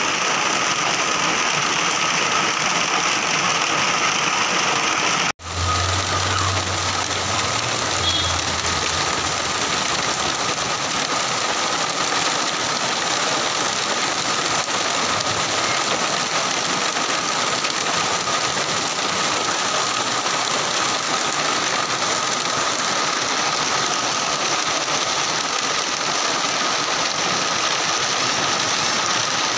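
Heavy rain falling, a steady loud hiss, broken by a brief dropout about five seconds in.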